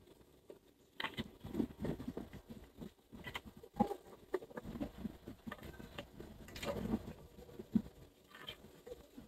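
Handling noise from a white enclosure lid being pressed and shifted by hand: irregular light taps, clicks and scraping rustles, the sharpest clicks about four seconds in and near the end.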